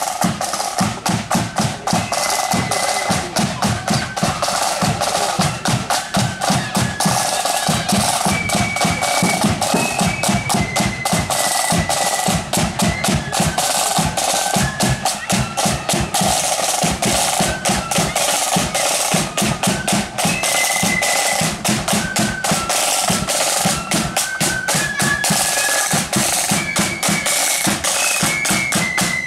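Marching flute band playing on the move: rapid, continuous side-drum strokes with a high flute melody stepping from note to note over them.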